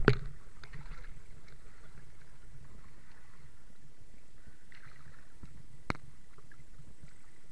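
Steady, muffled low water noise in the river at the camera, with a loud knock right at the start and a single sharp click about six seconds in.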